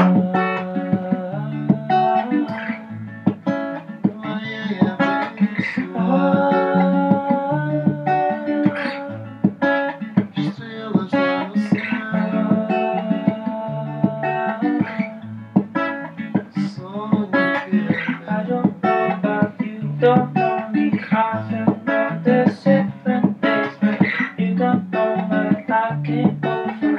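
Acoustic guitar strummed in a steady rhythm, with chords over a repeating bass-note pattern.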